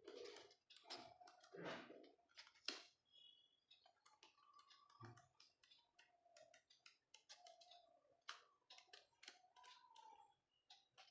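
Faint, irregular clicks and short rustles of hand-handling noise, busier in the first few seconds, with no speech.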